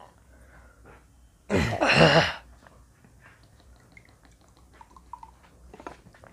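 One loud, harsh cough lasting under a second, about a second and a half in, from a man who has just swallowed raw mustard oil. Faint trickles and small ticks follow as mustard oil is poured from a plastic bottle into a glass.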